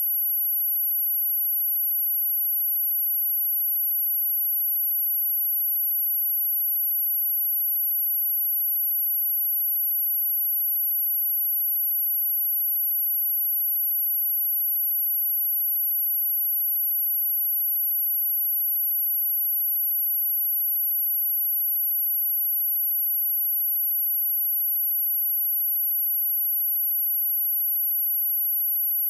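A steady, high-pitched pure sine-wave test tone at 11713 Hz, held at a constant level with no other sound, a speaker-cleaning tone meant to shake water and dust out of a speaker.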